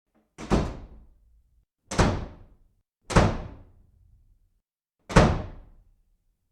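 Four heavy thuds at uneven intervals, each hitting hard and dying away within about half a second.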